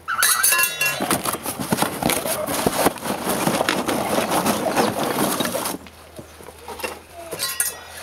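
Lumps of charcoal clinking and clattering against each other as coals are handled and tipped in. The clatter stops about six seconds in.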